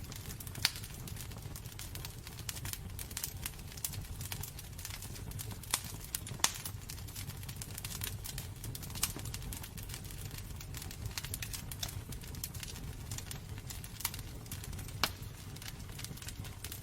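Wood fire burning in a fireplace: a steady low rumble of flames with irregular crackles and pops, a few sharper pops standing out.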